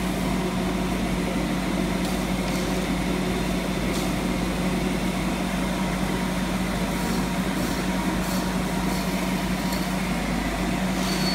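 Mulch slinger truck running steadily while its conveyor throws mulch through the air: a constant mechanical drone with a steady hum, and a few faint ticks.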